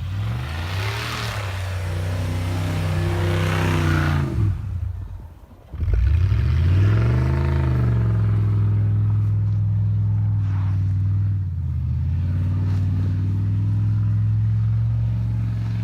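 Car engine revving hard, its pitch climbing and then holding high, with a hiss over the first few seconds. It drops off near the middle, then revs up again and holds a steady high drone.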